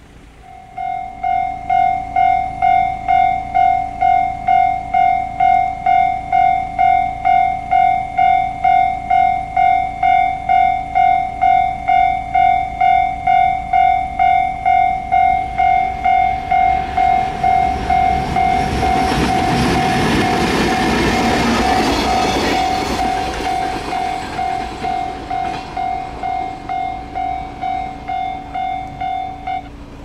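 Level-crossing warning bell ringing with an even electronic ding about one and a half times a second, starting about a second in. Midway a train passes over the crossing, its noise swelling and fading away. The bell stops just before the end.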